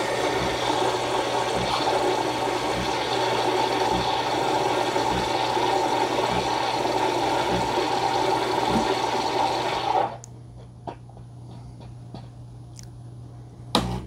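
Mr. Coffee Prima Latte Luxe espresso machine's automatic milk frother frothing milk into a mug: a steady rushing hiss with a faint pulse about once a second, which cuts off sharply about ten seconds in when frothing finishes. A low machine hum and a few clicks follow, the loudest click near the end.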